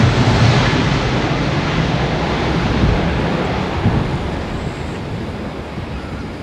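Jet airliner engines roaring as the plane passes close by on takeoff or landing. The sound is loudest at first and slowly fades as the aircraft moves away.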